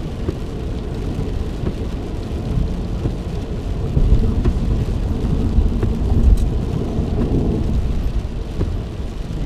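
Steady low rumble of a car's engine and tyres on the road, heard inside the cabin while driving at freeway speed, swelling slightly a few times.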